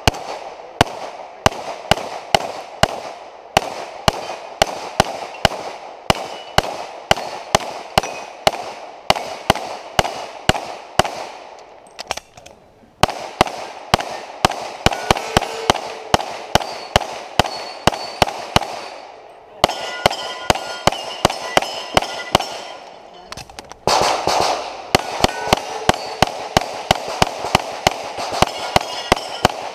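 Rapid pistol fire from a compensated STI 2011-style open-class .38 Super: fast strings of shots, about three a second, with short breaks about twelve, nineteen and twenty-three seconds in. Steel plates and poppers ring between shots in the later strings.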